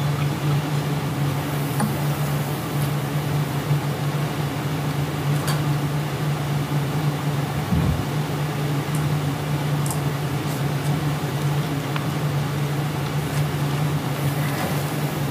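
Steady low mechanical hum with a hiss over it, with a few faint clicks and a soft low thud about eight seconds in.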